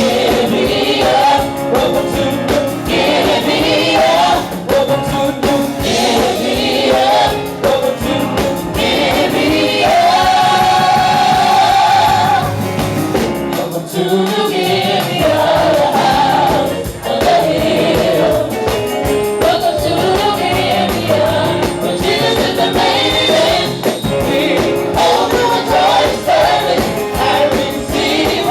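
Gospel choir singing over instrumental accompaniment, with a long held note about ten seconds in.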